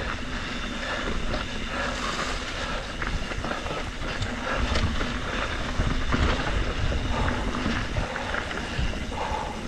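Trek Slash 7 full-suspension mountain bike riding fast down a rough dirt trail: wind on the helmet-camera microphone, tyres rolling over dirt and rocks, and many small knocks and rattles from the bike over bumps.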